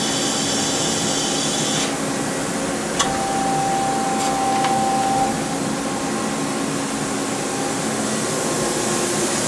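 Steady running hum of a 1991 Miyano LE-31 CNC turning center standing powered up after a tailstock move. A set of high whining tones cuts out about two seconds in, then a sharp click follows and a steady whine holds for about two seconds.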